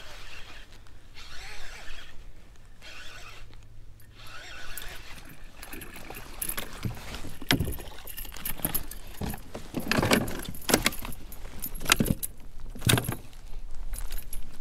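A small hooked fish thrashing and splashing at the water's surface beside a kayak as it is reeled in and swung aboard on a spinnerbait, with a string of sharp splashes, knocks and metallic rattling starting about six seconds in. Before that, only a light wash of wind and water.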